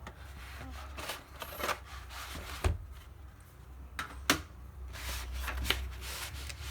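A laptop being handled on a work surface during disassembly: scattered clicks and knocks with rubbing between them, and two sharper knocks about two and a half and four seconds in.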